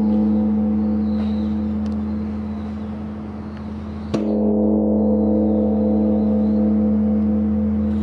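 Large Korean Buddhist bronze temple bell (beomjong) ringing with a deep, lingering hum. It is struck once about four seconds in, with a wooden log, and its tone swells back to full strength and rings on.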